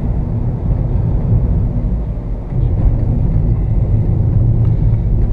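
Steady low rumble of a car driving in traffic, heard from inside the cabin: engine and road noise, getting louder about halfway through as the car picks up pace.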